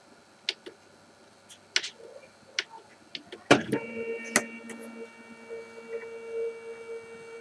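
A few light clicks and taps, then a knock about halfway through, after which the CTC 3D printer's stepper motors start a steady pitched whine as the build plate moves, the printer starting its job again.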